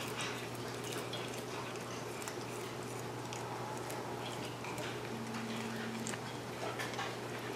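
Maine coon cat chewing fresh-cut grass: a scatter of faint, soft crunches and clicks, over a steady low hum.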